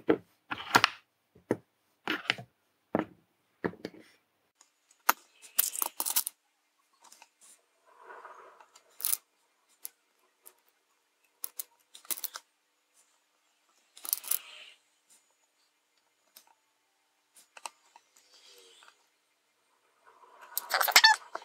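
Scattered light clicks and taps from hands handling a small circuit board fitted with LEDs, with plastic pens set down beside it, and a few short rustles. A denser run of clicking and rustling comes near the end.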